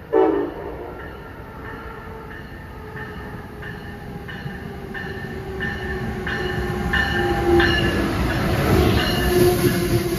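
Amtrak train led by an ACS-64 electric locomotive approaching and running into the platform, its rumble and a steady hum growing louder until the coaches pass close by near the end, with a ringing strike repeating about every half second. A brief loud falling tone sounds just after the start.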